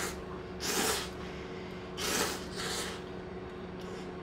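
Someone eating hot ramen noodles: three short, breathy slurps in quick succession, over a steady low hum.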